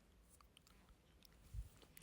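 Faint chewing of frozen grapes close to the microphone: scattered quiet mouth clicks, with one soft low thump about a second and a half in.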